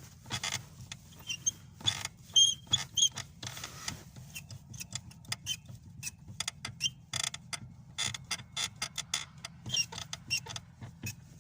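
Lada clutch pedal squeaking and creaking again and again as it is pressed and released. The squeak comes from the dry clutch-cable bracket and its eye at the top of the pedal, which the owner says needs lubricating.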